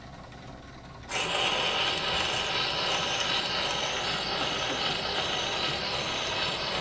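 Surface hiss of an Edison C-150 disc phonograph's diamond stylus running in the record groove. It sets in suddenly about a second in as the reproducer is lowered onto the turning record, then runs steadily with no music yet.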